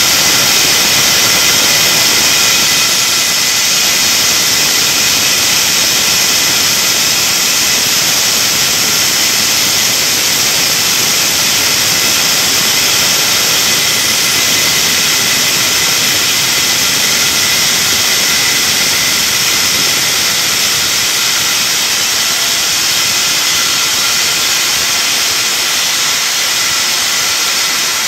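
Handheld electric diamond core drill running steadily as its water-fed core bit cuts into a wall: a continuous motor whine with a high hiss.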